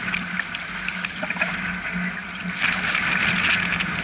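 Sea water splashing and lapping around a wader standing in small, choppy waves, with a louder rush of splashing about two and a half seconds in. A steady low hum runs underneath.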